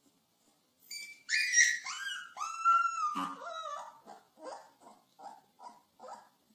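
Young puppies whining: a run of high cries, each a little lower than the last, then a string of short, soft whimpers, two or three a second.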